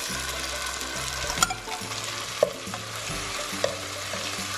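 Butter and garlic sizzling in a hot skillet as blobs of condensed cream of chicken soup are pushed and broken up with a wooden spatula, with three sharp taps of the utensil against the pan.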